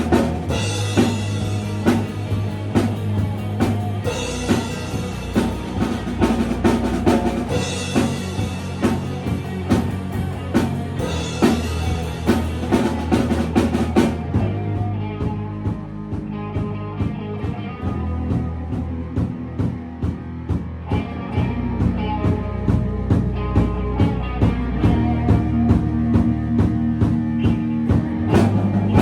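A band playing a song live, led by a drum kit keeping a steady beat over held bass notes. About halfway through, the bright high end drops out, leaving the drums and the lower instruments.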